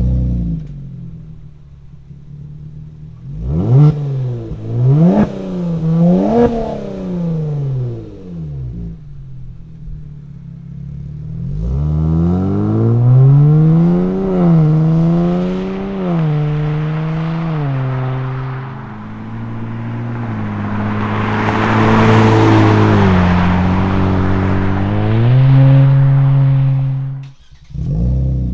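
Kia Stinger with an MBRP active cat-back exhaust in Normal mode: three quick revs in place that fall back to idle, then the car pulls away and accelerates, the exhaust note climbing and dropping back at each gear change before settling into a steady run. It cuts off suddenly near the end.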